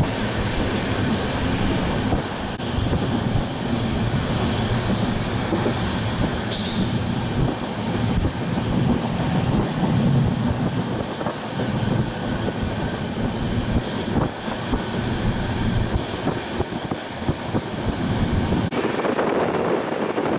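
Moving diesel-hauled passenger train heard at a coach window: the steady running noise of wheels on rail over a low engine hum. There is a brief high-pitched wheel squeal about six seconds in. Near the end the sound changes abruptly to rushing wind.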